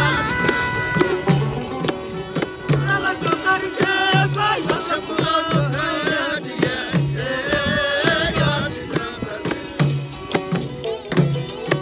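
Dolan muqam music: men singing over a Dolan rawap long-necked lute, a qalun zither and dap frame drums, with the drums keeping a steady low beat.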